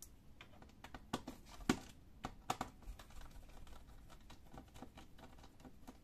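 Small, irregular clicks and taps of a screwdriver working the screws out of the plastic bottom panel of a Dell Inspiron 15 3573 laptop, with a few sharper clicks a second or two in.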